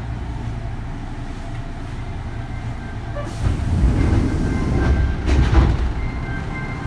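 Kintetsu 3200 series electric train running, heard from inside the car: a steady low rumble of wheels on rail. About three and a half seconds in, it swells into a louder rumble with clattering for a couple of seconds, then settles back.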